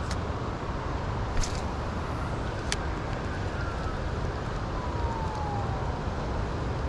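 Fast river current rushing steadily, with a few light clicks. A faint tone slides slowly down in pitch in the middle.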